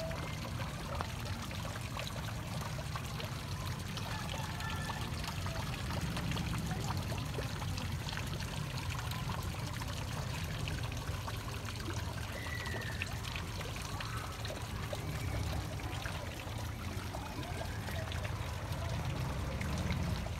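Water trickling and splashing steadily into a garden pond, over a steady low rumble.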